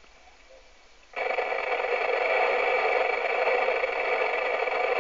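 FM radio receiver on the 27 MHz CB freeband: about a second of quiet between transmissions, then a sudden, steady rush of static as a signal comes in with no voice on it.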